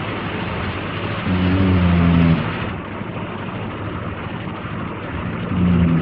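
A man snoring: two low snores, the first about a second in and the second near the end, over a steady hiss.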